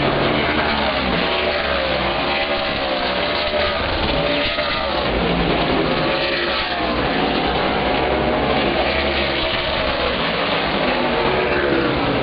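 A pack of Outlaw Super Late Model race cars at race speed, their V8 engines blending into one loud, steady sound whose pitch rises and falls in repeated swings as they pass.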